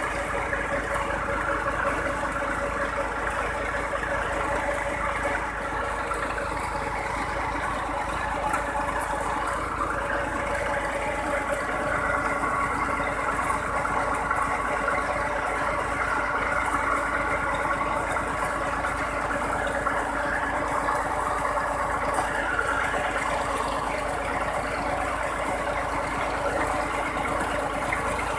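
Tube well engine running steadily, turning the pump through a flat belt and pulley.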